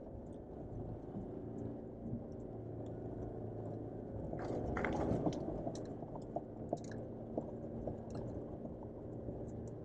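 Jeep Wrangler JL's engine running steadily at low revs, heard inside the cabin as it crawls over a rough trail, with scattered small clicks and creaks and a louder rattling jolt about four and a half seconds in.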